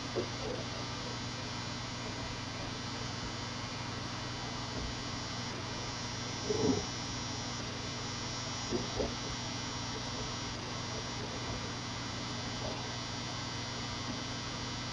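Steady electrical hum and hiss from a QNAP NAS running while it reboots after a firmware update. A few brief soft knocks come through, the loudest about six and a half seconds in.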